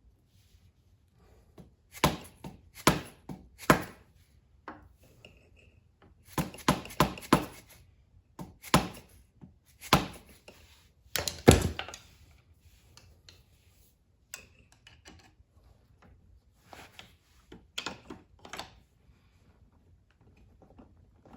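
Hammer tapping on a tool set against a stuck, tight part in the small engine's cylinder head, driving it back: sharp taps in short groups of three or four with pauses between, the hardest blow about halfway through and a few lighter taps near the end.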